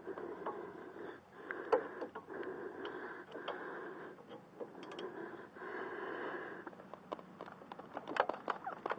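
Hand tools working bolts under the rear of a car: light metallic clicks and scrapes, with a run of quick clicks near the end. Beneath them is a soft rasping noise that comes and goes every couple of seconds.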